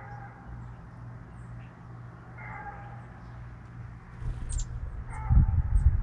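Three short animal calls, about two and a half seconds apart, with faint high chirps of small birds from about four seconds in. A low, gusty rumble comes in at the same time and becomes the loudest sound near the end.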